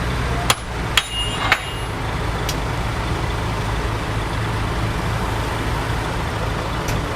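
Heavy diesel engine of earthmoving equipment running steadily, with three sharp clicks about half a second apart near the start.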